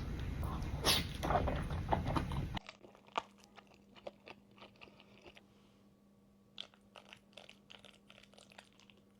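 Close-miked eating: loud biting and crunching, which cut off abruptly about two and a half seconds in, then faint chewing with scattered mouth clicks.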